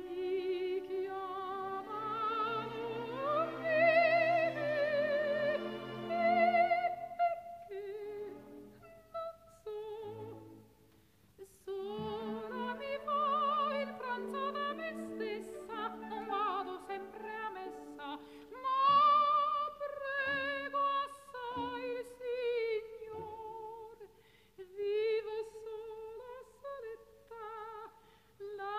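Slow, classical-style music: a singer's voice with strong vibrato over sustained accompaniment chords, with a brief lull about ten seconds in.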